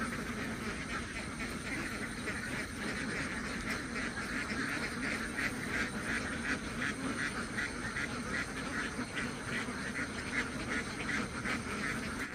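A flock of domestic ducks quacking, many short calls overlapping in a steady chorus.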